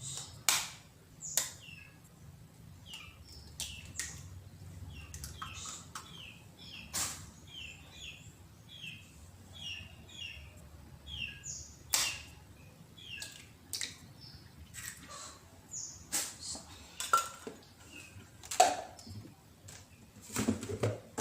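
Small birds chirping, with a quick run of short falling chirps through the middle. Sharp kitchen knocks and clicks sound every second or two, the loudest about halfway and near the end.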